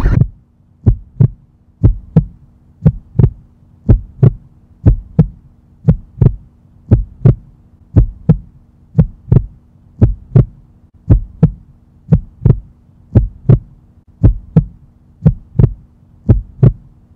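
Heartbeat sound effect: paired lub-dub thumps about once a second, over a faint steady low hum.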